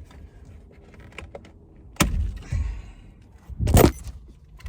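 Knocks and a clatter from handling tools and steering-wheel parts inside a car: a sharp knock about two seconds in, a softer thump after it, then a louder, brief metallic rattle near the end.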